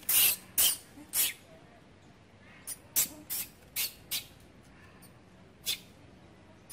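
Long-tailed macaque giving a series of short, breathy hissing calls. Three loud ones come in the first second and a half, followed by a scatter of shorter, fainter ones.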